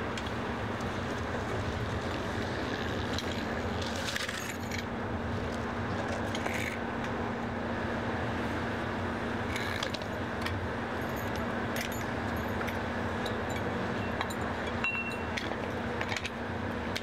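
Scattered metal clinks and clanks of aluminium cam-lock hose couplings being handled and locked onto an underground fuel tank's fill connector, over the steady drone of an idling diesel truck engine.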